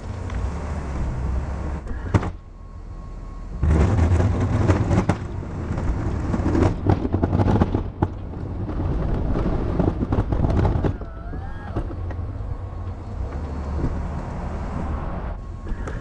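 Plow truck running under load. Its low rumble grows louder in two long stretches, with a sharp click about two seconds in.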